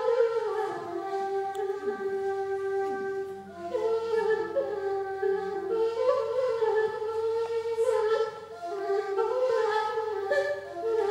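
A Serbian folk flute playing a melody of changing notes, some held for a second or two.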